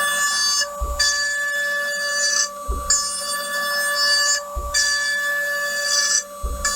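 CNC spindle cutting padauk wood, a steady high whine with a ringing set of tones. About every two seconds the whine dips briefly and a low thump sounds.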